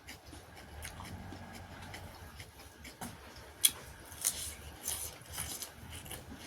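Close-up eating sounds: chewing and mouth smacks, with scattered sharp clicks, the loudest about three and a half seconds in.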